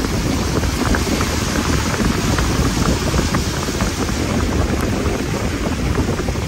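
Steady rushing noise of a car driving, with wind buffeting the microphone at the open side window and scattered light ticks.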